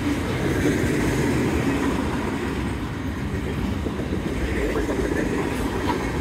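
Freight cars of a long mixed freight train rolling past on the track: a steady rumble and rattle of wheels on rail, with no horn or locomotive engine standing out.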